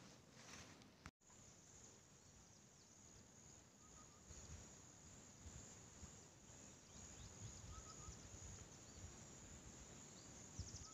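Near silence: faint outdoor background hiss with a few faint short chirps.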